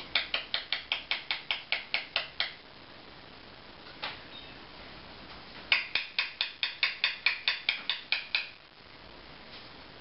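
Eclectus parrot making a rapid series of sharp clicks, about six a second, in two runs of two to three seconds each, with a single click in between.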